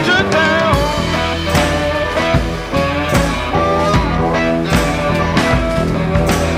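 Rock music with a lead electric guitar bending notes over a steady beat.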